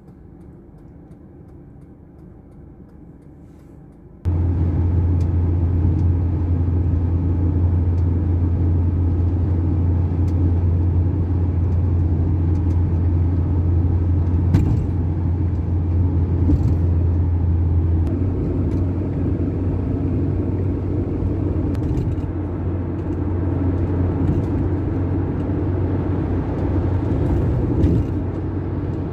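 A vehicle on the move: steady road and engine drone with a strong low hum, starting abruptly about four seconds in after a quieter stretch.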